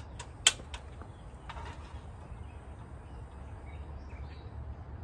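A spatula knocking against a frying pan of hash, with a sharp click about half a second in and a couple of lighter clicks, over a steady low rumble.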